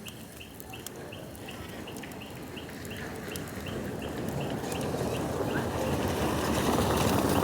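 Bonfire crackling with scattered sharp pops, under a short high chirp repeated evenly two or three times a second. A rush of noise grows steadily louder through the second half.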